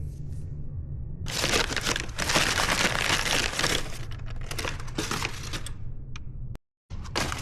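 Packaging material being crumpled and torn, in dense crinkling bursts that start about a second in and then thin out. There is a steady low hum underneath, and the sound cuts out briefly near the end.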